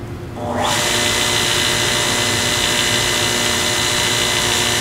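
Sorby flat sanding-belt sharpener switched on about half a second in, its motor and 180-grit abrasive belt coming up to speed, then running steadily with an even whine.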